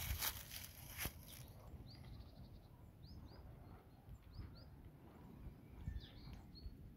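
Small birds chirping faintly in short paired notes every second or so. In the first second there is rustling and a single sharp click.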